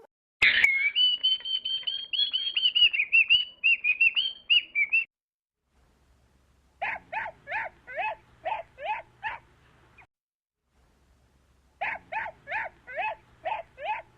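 Bird calls: a fast, warbling twitter for about five seconds, then after a short pause two runs of short repeated notes, about three a second.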